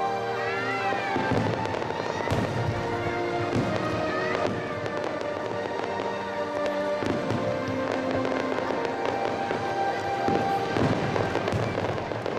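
Aerial fireworks bursting, with repeated bangs throughout, over music playing with long held notes.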